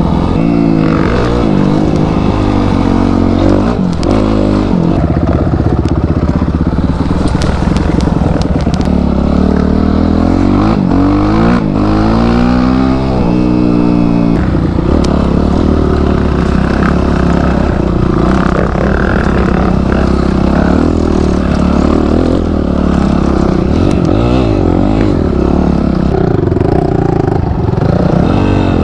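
Off-road motorcycle's small single-cylinder engine running under load on a forest trail, its revs repeatedly rising and falling with the throttle, with some clattering from the bike over rough ground.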